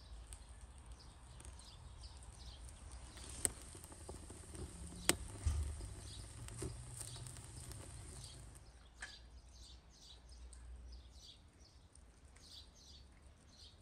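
Small birds chirping over and over, with a few sharp snaps from kindling catching in the firebox of a wood-fired barrel oven. A low rumble runs under the first two thirds and fades out about eight seconds in.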